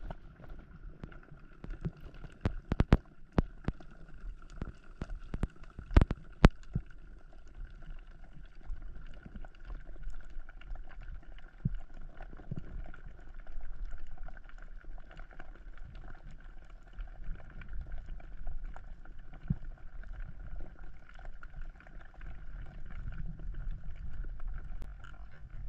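Underwater ambience heard by a submerged camera: a low rumble and a steady faint hum, with a cluster of sharp clicks about two to three seconds in and two more around six seconds.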